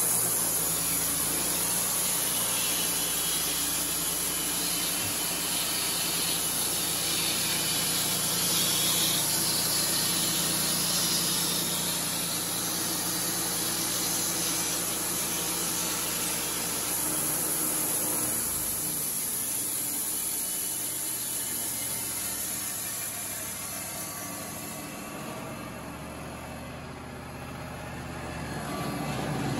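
Wood-Mizer LT35 band sawmill running, its engine steady and the band blade sawing through a cedar cant with a hissing cut. After about twenty seconds the sawing noise fades and the machine goes quieter, then picks up again near the end.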